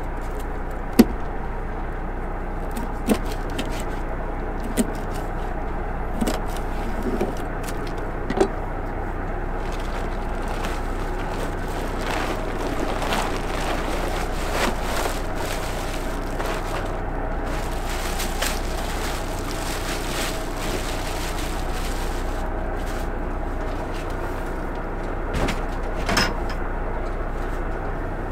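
A knife chops thawed pollock on a wooden cutting board: a handful of sharp knocks, about one every second or two, during the first nine seconds. A boat engine hums steadily under it all, and a couple of softer knocks come near the end.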